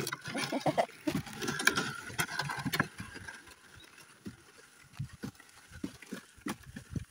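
Wooden sled drawn by a water buffalo dragging and bumping along a dirt track, with irregular knocks and thuds, busiest in the first few seconds.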